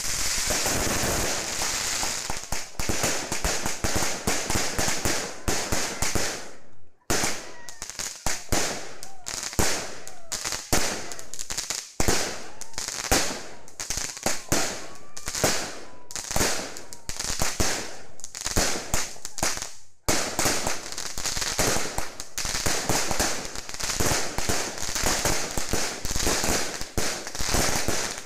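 A 49-shot fireworks battery (cake) firing: a fast, dense run of bangs and crackles, with brief breaks about seven and twenty seconds in. A few faint rising whistles come through in the middle.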